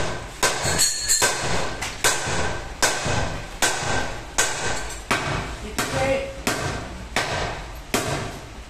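A hammer beating repeatedly on a tyre and its steel wheel lying on a workshop floor, about eleven even blows at a little more than one a second, each with a brief metallic ring.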